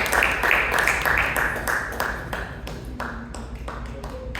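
Audience applause dying away, thinning to scattered individual claps.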